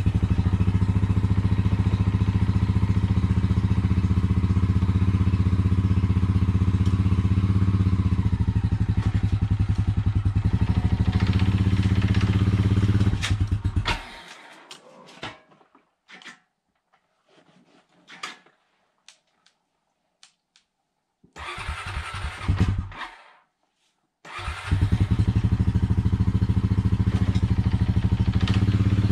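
Honda Rancher ATV's single-cylinder four-stroke engine running steadily as the quad is eased forward onto steel wheel ramps, rising a little with throttle around 11 to 13 seconds. The engine sound cuts off abruptly about 14 seconds in, leaving a few clicks and a short burst of noise. It runs again from about 24 seconds.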